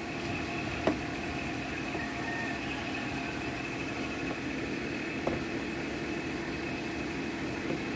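A steady mechanical hum. Against it a screwdriver tightens screws into a washing machine's plastic panel, giving a faint click about a second in and another about five seconds in.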